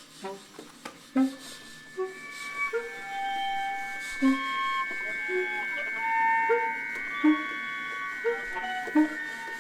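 Viola and baritone saxophone playing contemporary concert music: a high held tone sustains from about a second in, over short, sharply accented low notes and brief mid-range notes.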